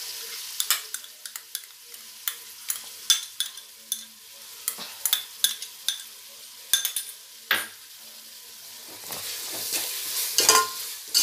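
Onions and ginger-garlic paste frying in oil in a metal pot, sizzling steadily, while a perforated steel skimmer ladle scrapes and clinks against the pot again and again. The sizzle grows louder near the end.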